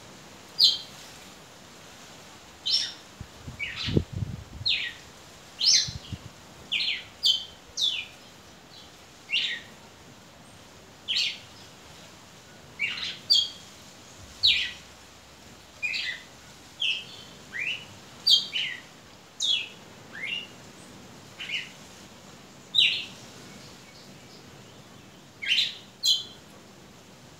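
Campina, a small Brazilian seedeater, chirping in its cage: short, sharp notes that fall quickly in pitch, alone or in quick pairs, about one a second. A dull low thump comes about four seconds in.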